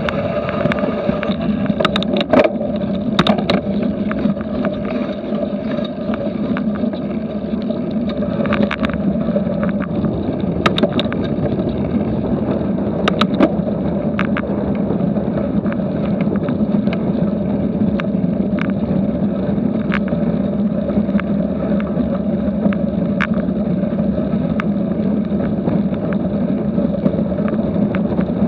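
Cyclocross bike rolling at race speed over gravel and grass: a steady rumble of tyres and wind on an action camera's microphone, with frequent sharp clicks and rattles from the bike.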